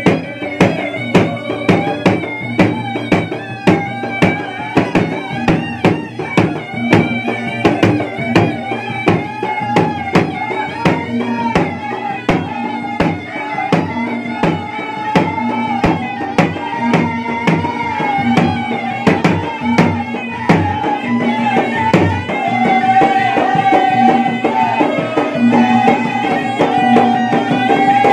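Bugis-Makassar gendang (ganrang) barrel drums beaten with stick and hand in a fast, driving rhythm, under a steady, reedy melody from a wind instrument.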